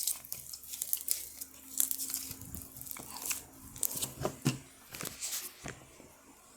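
Sticky, glue-laden slime being squeezed and pulled apart by hand, giving irregular crackling, tearing clicks that stop about a second before the end.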